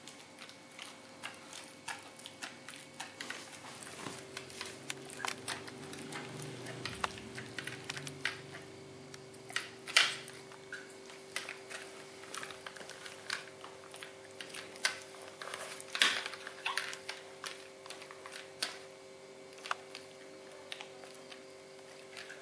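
Siberian Husky puppy gnawing a rawhide bone: irregular crunching clicks and snaps of its teeth on the hide, with two louder snaps partway through.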